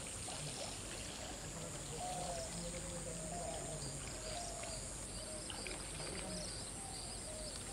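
Outdoor ambience: a steady high insect drone, with faint, short calls repeating beneath it every second or so.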